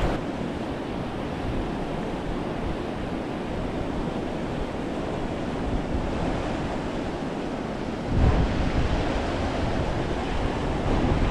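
Steady rush of a river running high, about triple its normal flow, with wind buffeting the microphone. A louder low gust comes about eight seconds in.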